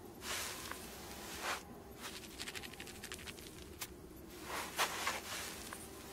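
Cartoon sound effects of a lizard's body dragging and scuffing over sand: several short hissing scrapes with light pattering between them, the loudest a little before the five-second mark.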